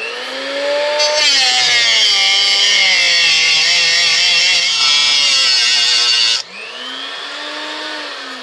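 Small angle grinder with a cut-off disc cutting into an aluminium H22 intake manifold. The motor winds up, and about a second in the disc bites with a loud, harsh grinding for about five seconds. Then it comes free, runs up unloaded and begins to wind down near the end.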